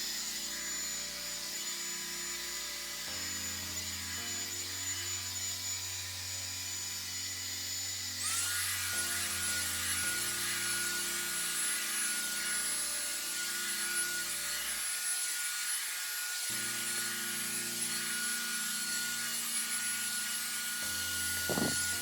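Revlon One-Step hair dryer brush blowing steadily, a fan whirr with a high motor whine. About eight seconds in the whine sweeps up to a higher pitch and the rush of air gets louder, as the dryer is switched up to a faster speed setting.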